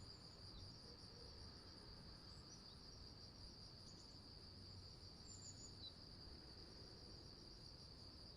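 Faint insect chirping, typical of crickets: a steady, high, finely pulsing trill, with a few short faint high chirps over it.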